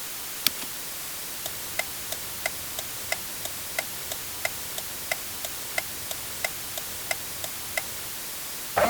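Car turn-signal flasher ticking: a single switch click, then an even, alternating tick-tock of about three clicks a second, which stops shortly before the end. A different chiming tone starts at the very end.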